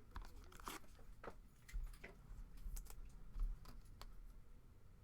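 Trading-card packs and cards being handled: faint crinkling and tearing of pack wrapper and cards sliding against each other, as a string of short, irregular crackles.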